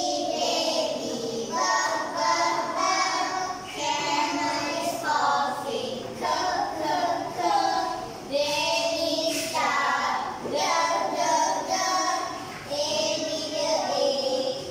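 A group of young children singing a phonics song together in short sung phrases.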